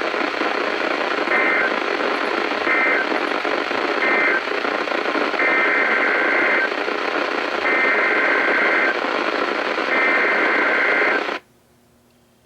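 NOAA Weather Radio SAME digital data bursts, heard through heavy static on a weak, noisy weather-radio signal. There are three short warbling bursts, then three longer ones, each about a second apart. The audio cuts off suddenly near the end.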